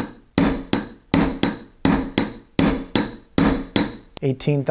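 Small gunsmithing hammer tapping a punch to drive a roll pin into a CZ P-07 pistol slide on a bench block: about ten sharp strikes, roughly two and a half a second, each with a brief ring.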